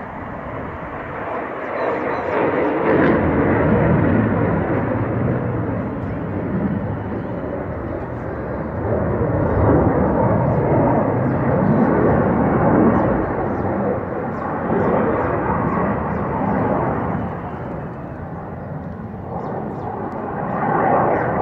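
JF-17 Thunder fighter jet, with its single Klimov RD-93 turbofan, flying past overhead: a loud jet roar that swells and eases several times.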